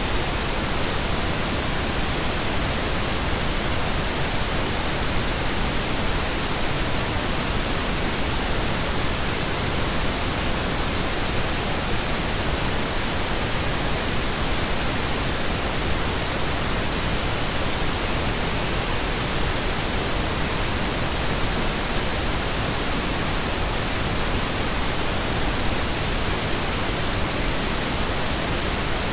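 Steady synthetic pink noise: an even, unchanging hiss spread across the whole range, with no breaks or events.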